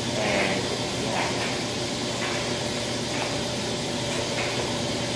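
Laundry room machines running: a steady hiss and low hum, with faint soft knocks about once a second.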